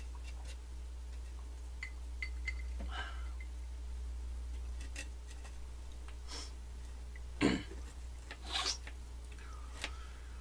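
Table knife cutting through a raspberry macaron on a small tray: faint clicks and several short scrapes of the blade, the loudest a little past two-thirds of the way in. A steady low hum runs underneath.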